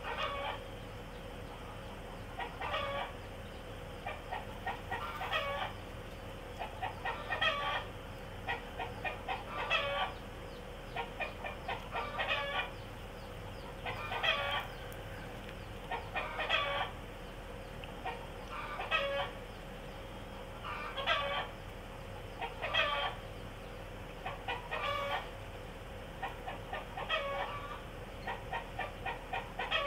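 Chickens clucking: a call every two seconds or so, with quick runs of short clucks in between.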